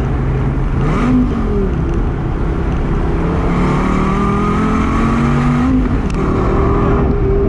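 Gen V Dodge Viper GT's 8.4-litre V10, with a Corsa exhaust, pulling through a gear under moderate throttle: its pitch rises gradually for a few seconds, drops suddenly at a gear change about six seconds in, then holds steady.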